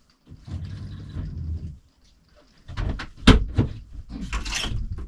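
Muffled bumps and rustling of someone moving about behind a closed door, with a cluster of sharp clicks and knocks about three seconds in.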